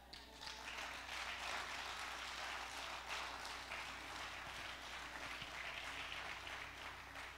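Church congregation applauding, building up in the first second and slowly tapering off near the end.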